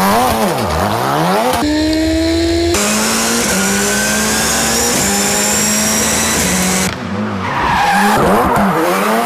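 Ford Fiesta rally car's engine revving hard, its pitch swinging rapidly up and down as the throttle is worked in a slide, with tyre squeal. The sound jumps abruptly a few times between shots, and in the middle stretch the engine holds a steadier pitch.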